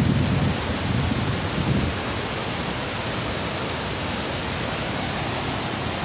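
Steady rush of a river waterfall, an even hiss of falling water, with wind buffeting the microphone during the first couple of seconds.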